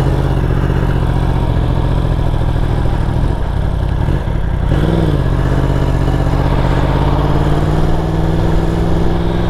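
Yamaha R1 crossplane inline-four with an SC Project aftermarket muffler running at low road speed on light throttle, with wind rush. Engine pitch rises and falls briefly about five seconds in, then climbs slowly as the bike picks up speed.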